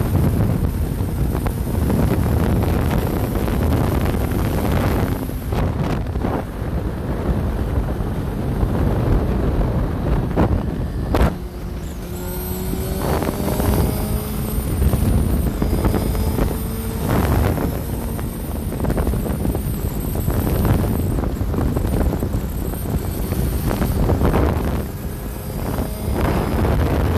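Wind buffeting a phone microphone on a motorcycle at highway speed, with the bike's engine and passing traffic running under it. Around the middle the engine note rises a few times, and there is one sharp knock about eleven seconds in.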